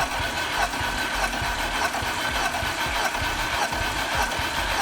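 Starter motor cranking the VAZ-21099's carburetted four-cylinder engine with all spark plugs removed and the throttle held wide open. The engine spins steadily without firing, for a compression test of the third cylinder.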